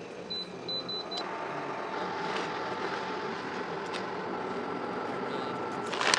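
About four short electronic beeps, then a steady sizzling hiss of butter foaming and melting in a hot steel wok, over a faint hum. A plastic bag crinkles just at the end.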